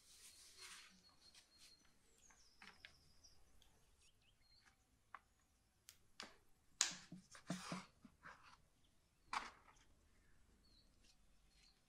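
Quiet knocks and scrapes of a long knife blade pressed down through soft bread dough onto an aluminium tray, with a few sharper knocks about seven and nine and a half seconds in.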